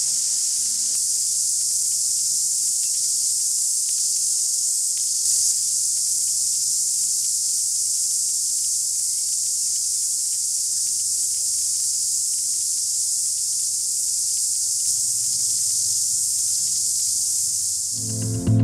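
Cicadas singing in a dense chorus: a loud, steady, high-pitched hiss that does not break.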